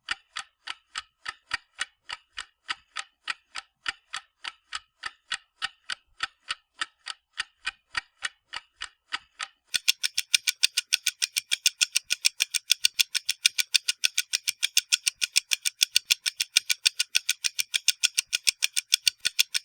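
Clock-timer ticking, about three ticks a second. About ten seconds in, with ten seconds of the minute left, it switches to louder, higher, faster ticks at about five a second, marking the final countdown. An alarm tone starts at the very end.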